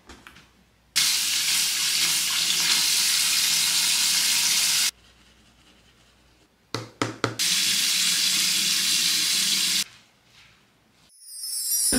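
Water running from a tap into a sink in two spells of a few seconds each, each starting and stopping abruptly, with a few knocks just before the second.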